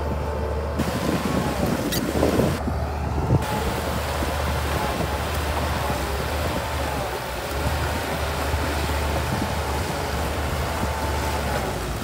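Shantui DH17C2 bulldozer's diesel engine running steadily, with a single knock about two seconds in.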